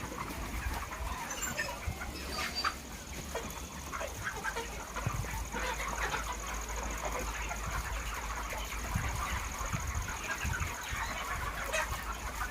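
A flock of chickens in a poultry house clucking and calling, many short overlapping calls without a break. A steady high-pitched tone and a low hum run underneath.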